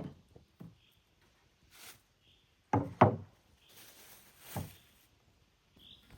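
A few separate knocks and thuds, the loudest two coming close together about three seconds in.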